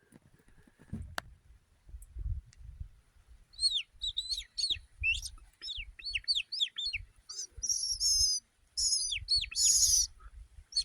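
Small birds chirping: a quick run of short chirps that fall in pitch, beginning a few seconds in, turning into a denser, higher burst of chirping near the end.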